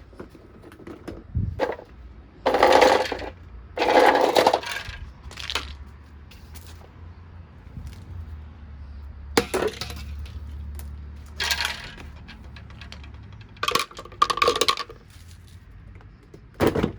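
Plastic vacuum cleaner parts being handled during disassembly: about seven short bursts of clattering and scraping, with clicks in between.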